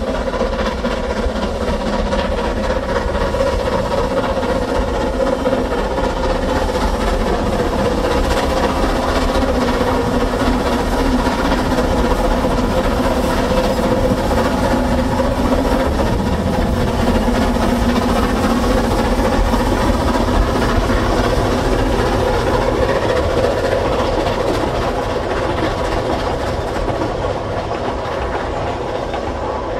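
Narrow-gauge ALCO 2-6-2T steam tank locomotive working past with a train of carriages, a steady loud rumble of the engine and the carriages running on the rails.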